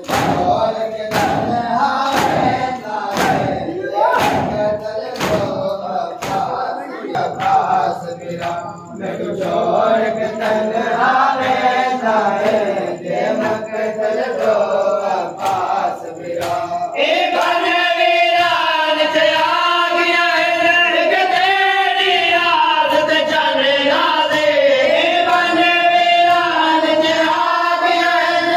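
A crowd of men chanting a nauha (mourning lament) in unison while beating their chests in matam, the slaps falling together about once every 0.8 s. From about 17 s in, the group chant swells louder and steadier, with the chest beats less prominent.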